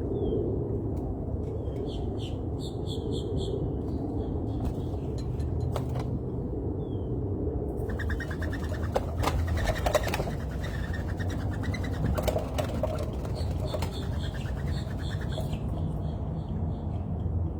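Small birds chirping at a feeder in short bursts of quick high notes, busiest in the middle, over a steady low background rumble.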